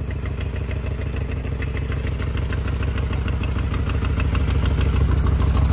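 Harley-Davidson touring motorcycle's V-twin engine idling steadily through its twin exhaust, getting a little louder toward the end.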